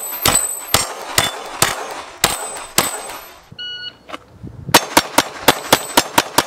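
9mm pistol firing frangible lead-free rounds at close-range steel targets: six shots about half a second apart, each with a ring off the steel, the last strings of a 3-2-3 drill. After a short tone and a pause, a faster run of about nine gunshots follows, about five a second.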